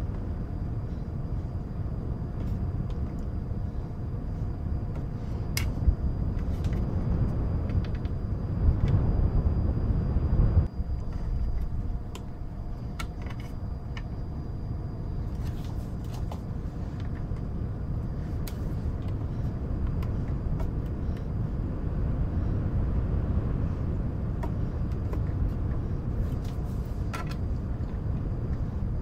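A steady low rumble of wind and white noise, swelling about a third of the way in and then dropping suddenly. Scattered faint clicks of cardboard jigsaw puzzle pieces being tapped and sorted sit over it.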